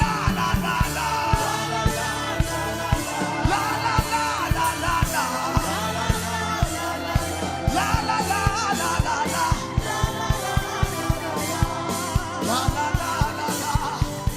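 Worship band music with a steady, fast drum beat under a voice singing without words.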